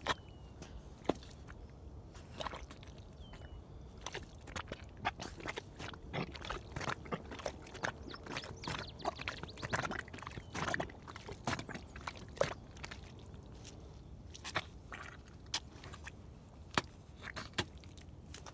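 Baffin rubber boots squelching and sucking in deep wet mud as the wearer steps and treads in it, a long run of short wet smacks and pops, busiest around the middle.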